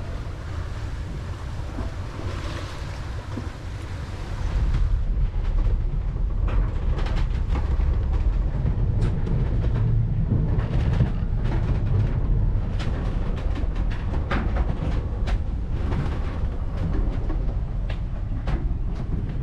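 Beneteau 57 sailboat beating into waves in strong wind: wind and rushing water, then from about five seconds in a louder low rumble from the hull with many short knocks and clicks as the boat works through the sea.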